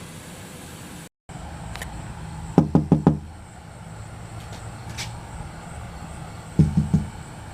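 Two quick runs of about four knocks each, a few seconds apart, over a steady low hum.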